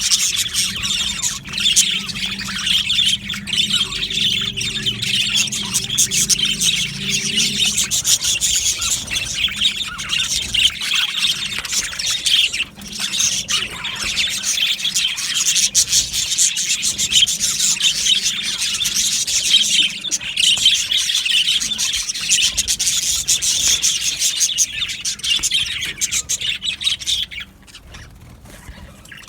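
A flock of budgerigars (budgies) chirping and chattering together in a dense, unbroken warble. It drops away sharply about two seconds before the end. A faint low hum runs underneath for the first eight seconds or so.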